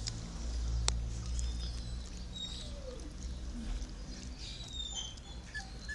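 A few faint, short whimpers and squeaks from a month-old Yorkshire terrier puppy held in hands, over the low rumble of handling close to the microphone. A sharp click comes about a second in.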